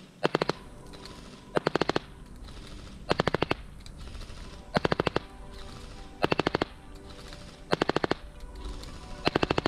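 Specna Arms SA-46 Core airsoft electric LMG replica firing short full-auto bursts, seven bursts of about six shots each, roughly one and a half seconds apart. Each burst is a fast rattle of piston-and-gearbox cycles at about 14 shots a second.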